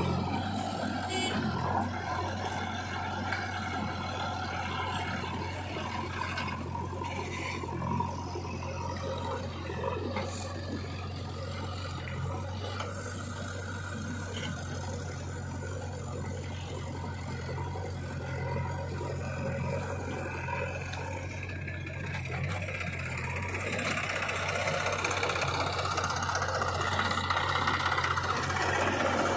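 Diesel engines of a JCB 3DX backhoe loader and a tractor running steadily as the loader works, growing louder near the end.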